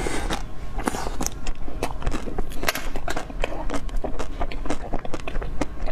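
Eating a blue jelly sweet: biting and chewing, heard as a dense run of sharp clicks and crunches.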